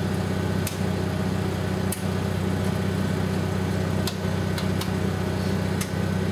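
Generator engine running steadily, a constant low hum. About six sharp clicks come over it, as circuit breakers on the truck's electrical panel are switched on.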